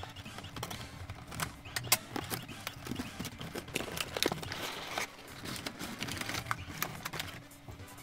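A cardboard toy box being opened and a toy van in clear plastic packaging lifted out: scattered clicks and taps of cardboard flaps and stiff plastic, with a short stretch of crinkly rustling about halfway through.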